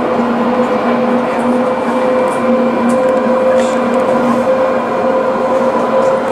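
Alstom Citadis 302 tram running at steady speed along grass-covered track, heard from inside at the front. A continuous rumble carries steady electric whining tones and a lower hum that comes and goes in short pulses.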